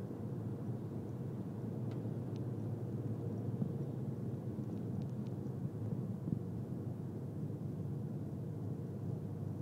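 Steady low rumble of a car's tyres and engine heard inside the cabin while driving on a wet road, with a few faint ticks.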